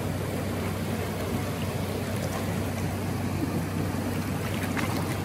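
Steady rush of a river running over rocks below a small falls, with light splashing near the end as a hooked Atlantic salmon thrashes at the surface.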